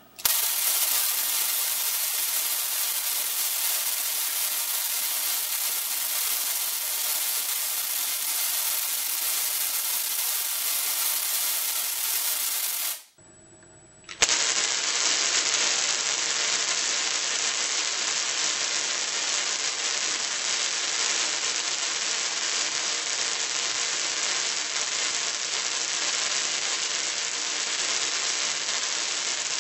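Tesla coil throwing sparks: a loud, steady hiss of electrical discharge that stops suddenly about 13 seconds in, then starts again a second later and runs on.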